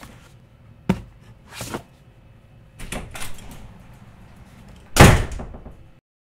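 A few light knocks and shuffles, then a room door slammed shut about five seconds in, the loudest sound, dying away over about a second.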